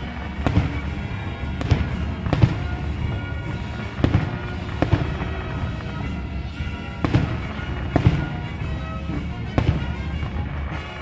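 Aerial firework shells bursting, about eight sharp bangs at uneven intervals, over steady music playing underneath.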